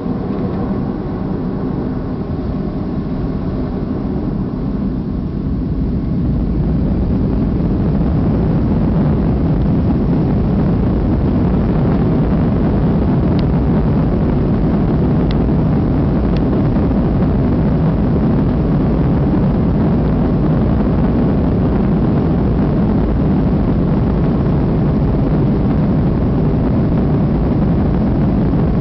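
Airliner engines heard from inside the cabin during takeoff: a whine with steady tones at first, growing louder about six seconds in as thrust comes up, then a steady loud rumble.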